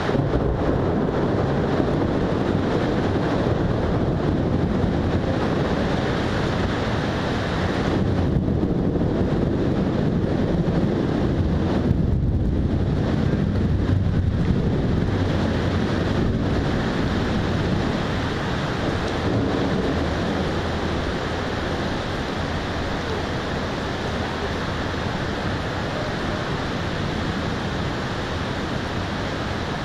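Storm wind buffeting the microphone: a loud, continuous rushing noise that surges in gusts and eases a little after about eighteen seconds.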